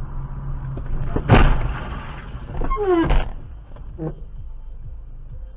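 Car crash recorded by a dashcam inside the car: a steady engine hum, then a loud bang about a second in, a short falling wail, and a second bang about three seconds in.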